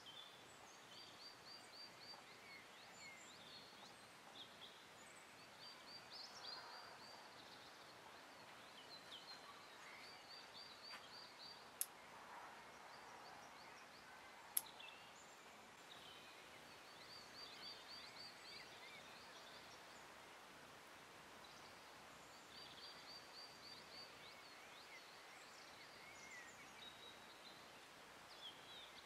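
Faint outdoor quiet with birds calling in short, rapid high trills every few seconds. About halfway through come two sharp snips of bonsai scissors cutting the pine, a few seconds apart.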